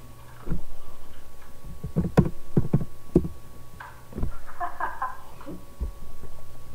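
A series of irregular knocks and thumps, clustered around two to three seconds in, over a steady low hum.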